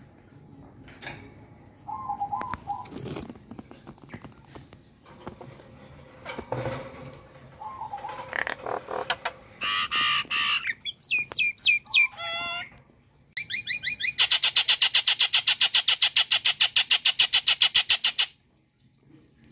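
Common myna calling: a mix of short gurgles, harsh notes and warbled whistles that rise and fall, then a loud, fast run of repeated chattering notes, about seven a second for some five seconds, which stops abruptly near the end.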